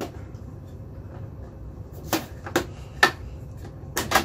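Plastic side cover of a da Vinci Mini W+ 3D printer being handled against the printer's housing: about six sharp clicks and knocks, one at the start and the rest in the second half.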